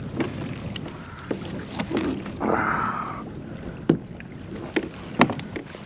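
Handling noises on a fishing kayak: scattered knocks and clicks against the hull, with a brief rush of noise lasting under a second about two and a half seconds in.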